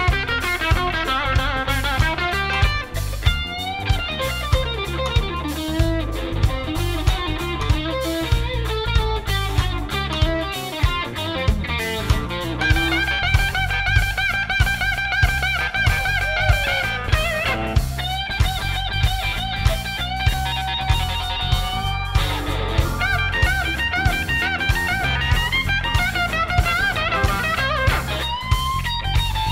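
Live blues-rock band playing: electric guitar lines over a steady drum-kit beat, with bass and keyboard filling in.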